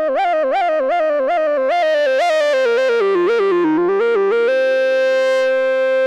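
Moog Subsequent 25 analog synthesizer playing a single-line lead: a quick repeating figure of stepped notes that walks down in pitch, then settles on one held note for the last second and a half.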